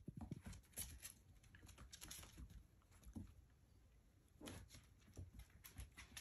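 Faint scuffling and soft taps of paws on a hardwood floor as a miniature dachshund puppy and a cat tussle, scattered irregularly with light rustles.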